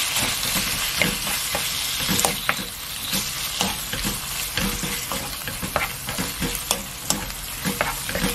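Squid pieces and a spoonful of chili-paste sauce sizzling in hot oil in a wok, stirred with a wooden spatula that knocks and scrapes against the pan in frequent, irregular strokes over a steady frying hiss.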